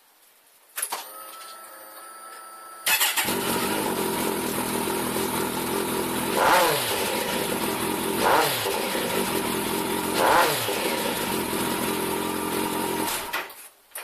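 Kawasaki 1400GTR Concours inline-four, fitted with Vance & Hines CS One slip-on exhaust, starting after a brief steady whine and settling to idle. It is then revved three times, each a quick rise and fall in pitch, and is switched off near the end.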